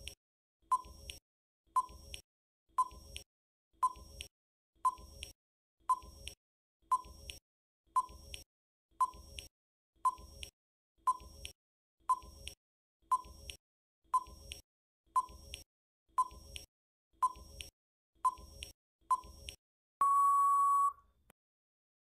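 Countdown timer sound effect: a clock-like tick about once a second, then a steady high beep lasting about a second near the end as the time runs out.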